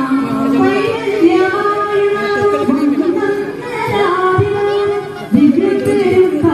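Background music: a song with a single voice singing a slow melody, holding notes and sliding between them.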